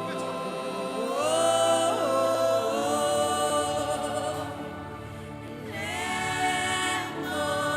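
Congregation singing a slow gospel worship song together with long held notes, over a sustained keyboard accompaniment.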